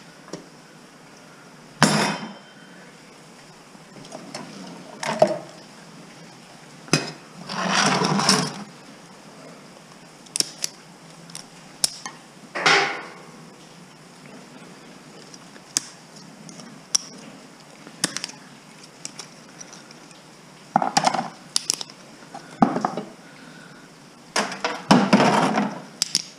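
Scattered clanks and clatters of computer scrap being handled and sorted into bins, a dozen or so separate knocks with pauses between, a cluster of them near the end.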